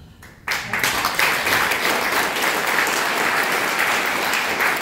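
Audience applauding, breaking out suddenly about half a second in and holding steady.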